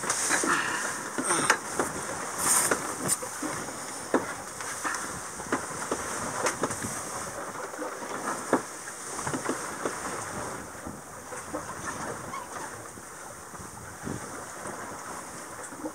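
Sailboat under way at sea: water washing along the hull with some wind noise, and scattered knocks and clicks from gear aboard, most frequent in the first few seconds.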